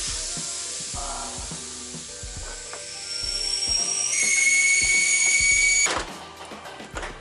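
Handheld power tool whirring at high speed: a hiss that takes on a rising whine about halfway through, grows louder and steady, then cuts off suddenly near the end. Light background music runs underneath.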